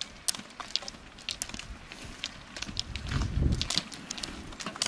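Ski-pole tips striking the asphalt in quick, irregular clicks as roller-skiers skate uphill past. A brief low rumble comes about three seconds in, as one skier passes close.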